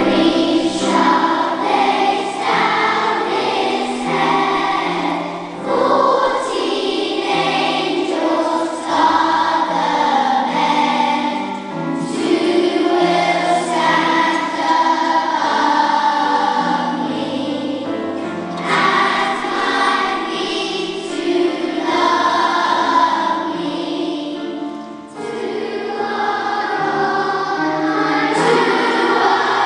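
Primary-school children's choir singing with a concert orchestra accompanying, in long sustained phrases with brief breaks between them.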